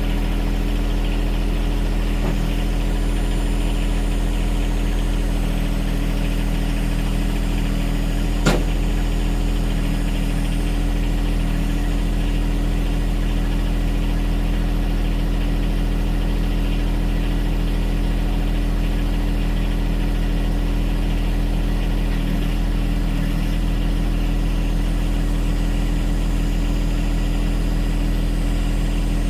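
Lawn mower engine running steadily at a constant speed, with one sharp click about eight and a half seconds in.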